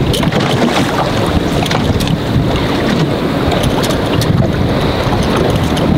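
Wind buffeting the microphone over open, choppy water, with waves lapping and a few short clicks.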